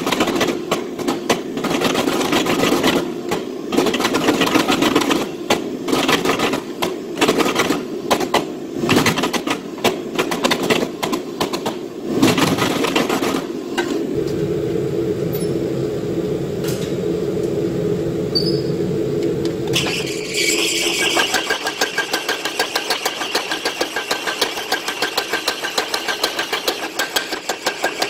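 Power hammer beating a glowing steel knife blank with rapid, closely spaced blows for about the first 13 seconds. The blows then stop and the machine hums without striking, and from about 21 seconds a steady mechanical knocking sets in, about three to four beats a second.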